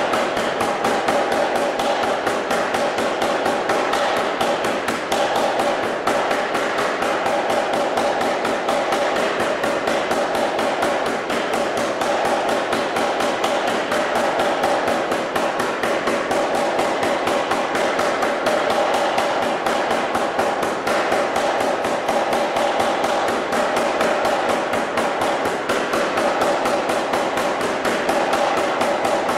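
Anyang 25 kg self-contained air power hammer running a rapid, steady series of blows, its ram striking a red-hot steel bar on the dies as the bar is drawn out.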